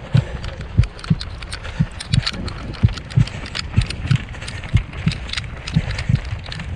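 A runner's footfalls on asphalt, about three steps a second, thudding through the camera carried on the run, over a steady rustle of wind and movement.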